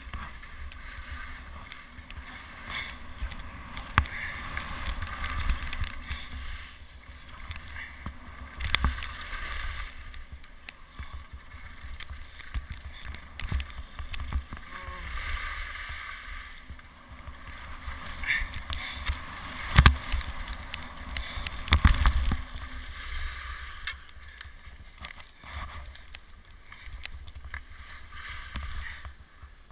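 Skis scraping and hissing over packed, chopped-up snow while wind rumbles on a helmet camera's microphone, the scrape swelling and fading with the turns. A few sharp knocks break in, the loudest about two thirds of the way through.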